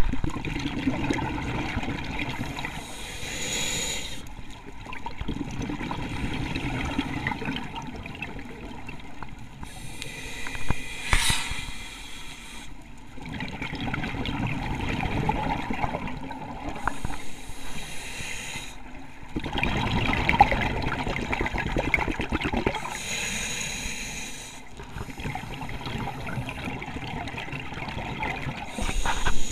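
Scuba diver breathing through a regulator underwater: a short hiss on each inhale, about every six seconds, then a longer bubbling rumble of exhaled air.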